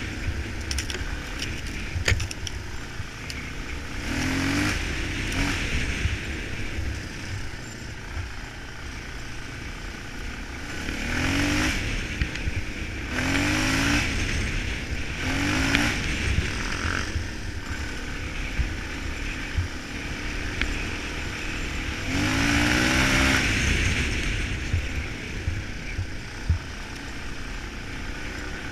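Suzuki DR-Z400E single-cylinder four-stroke dirt bike engine on the move, repeatedly accelerating with rising-pitch revs, the longest and loudest surge about two-thirds of the way through. A steady low rumble of wind on the microphone runs underneath, with occasional clatter.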